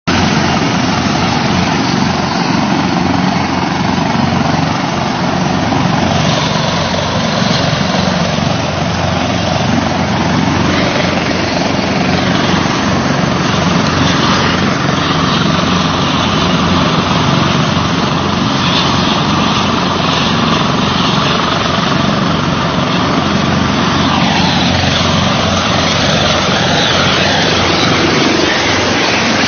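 Helicopter overhead: loud, steady rotor and engine noise with a fast low beat.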